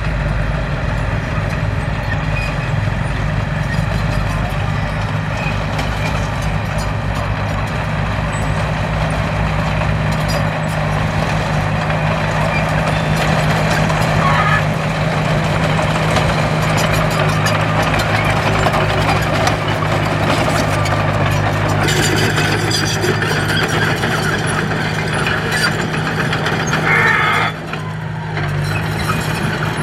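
Heavy diesel construction machinery running steadily under load, with a rough noise over the engine that grows stronger about two-thirds of the way through and dips briefly near the end.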